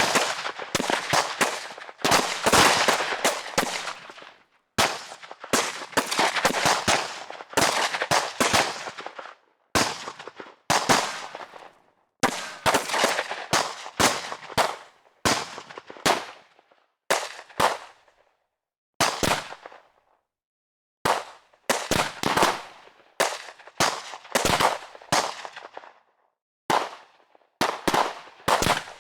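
Automatic gunfire sound effects: repeated bursts of rapid shots, each burst a second or two long with an echoing tail, separated by short silent gaps, mixed with a few single shots.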